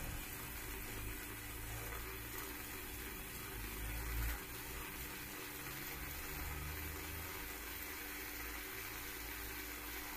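Stovetop moka pot bubbling and gurgling steadily on a low gas flame as the brewed coffee rises into its upper chamber, swelling briefly about four seconds in.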